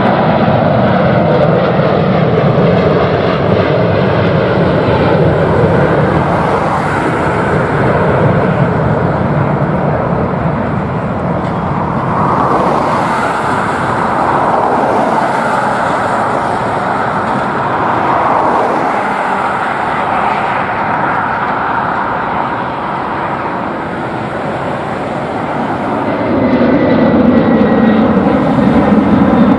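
Jet engines of a British Airways Airbus A380 (four Rolls-Royce Trent 900s) at takeoff thrust as it climbs out, loud and steady. Near the end the sound changes to a second departing jet, a Boeing 767, with a lower note.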